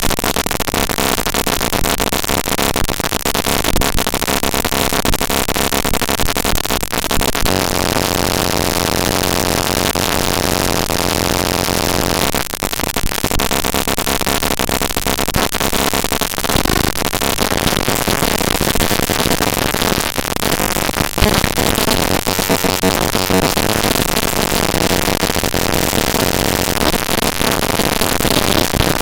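Raw network packet-capture output (tshark) played directly as big-endian 32-bit float audio samples: loud, dense harsh noise shot through with buzzing tones. Its texture changes abruptly several times.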